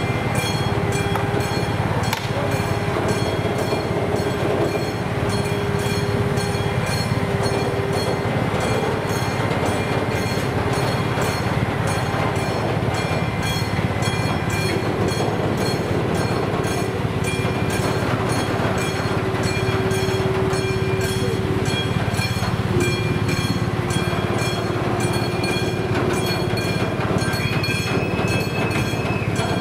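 A slow train of electric locomotives and a freight wagon rolling over a level crossing, with a steady rumble of wheels on the rails and drawn-out wheel squeals at times. The crossing's warning bell rings in a fast, even rhythm throughout.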